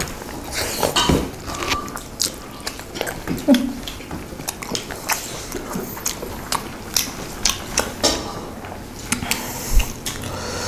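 Several people chewing mouthfuls of rice and pork curry, eaten by hand, with many short, scattered mouth clicks and smacks.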